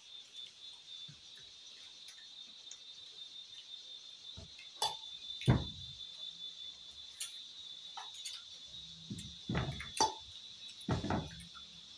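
Steady high-pitched chirring of crickets throughout, with scattered clicks, knocks and mouth sounds of people eating by hand from plates and bowls. The loudest knock comes about five and a half seconds in, and there is a cluster of them in the last few seconds.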